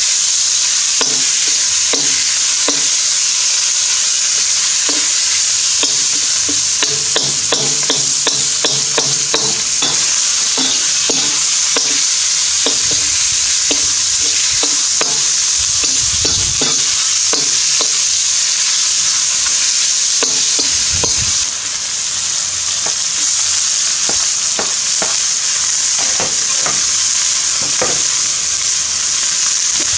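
Chicken stir-frying in a smoking-hot round-bottom wok: a loud steady sizzle, with many quick clacks and scrapes of a metal spatula against the wok as the food is tossed.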